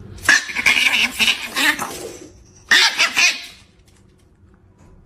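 Pet animal vocalising in two bursts, a longer one and then a shorter one about two and a half seconds in, before it goes quiet.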